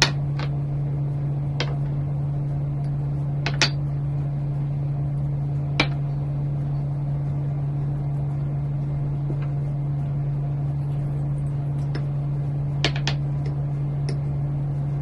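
A spoon clicks lightly against a bowl about eight times, as a seasoning paste is stirred, over a steady low mechanical hum.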